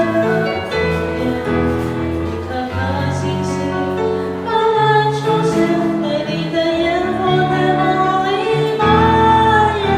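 A live band playing a pop song, with sung vocals over the instruments.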